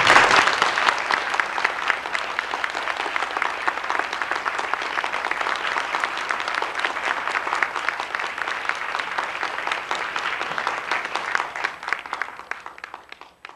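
Audience applauding, starting suddenly with a burst of many hands clapping, holding steady, then thinning out and dying away near the end.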